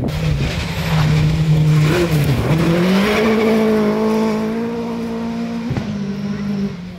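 Rally car engine at high revs as the car passes on a gravel stage. The engine note dips briefly about two seconds in, then climbs back and holds a higher steady pitch before easing near the end.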